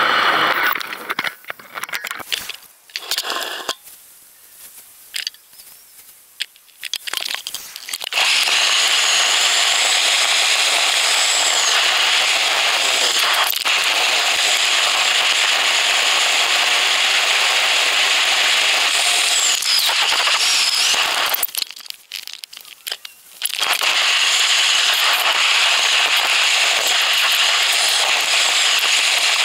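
Wind rushing over a bike-mounted GoPro's microphone while riding: a loud, steady hiss that drops away for several seconds near the start and again for about two seconds about 22 seconds in.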